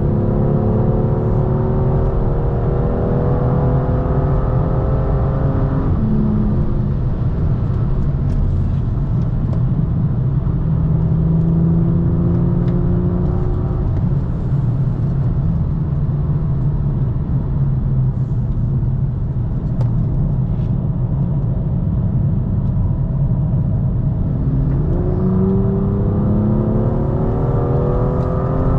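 BMW M2's turbocharged straight-six heard onboard at part throttle: the engine note climbs slowly in pitch, drops at a gear change about six seconds in, runs steadier with a short climb in the middle, then climbs again and drops at another shift near the end. Constant road and tyre rumble runs underneath.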